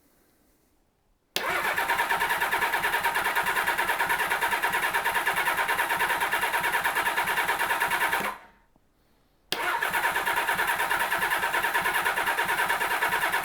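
Kawasaki Z1300 inline-six being cranked on its electric starter in two long bursts, about seven and four seconds, each with a rapid even pulsing. The engine does not catch.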